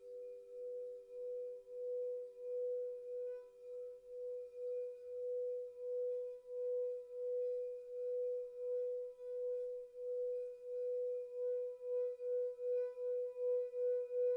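Frosted quartz crystal singing bowl sounding one sustained mid-pitched tone with faint higher overtones, swelling and fading in a steady pulse. A fainter lower tone dies away partway through, and the pulsing quickens and grows louder near the end.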